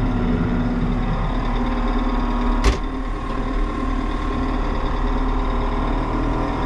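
Tractor engine running steadily at low hand throttle, heard from inside the cab while reversing, with the rotary tiller raised and its PTO stopped. A single sharp click about two and a half seconds in.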